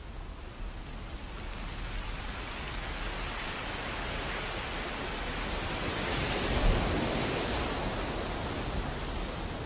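Steady rushing wash of surf-like noise, like waves breaking on a rocky shore, swelling slowly to a peak about two-thirds of the way through and then easing a little.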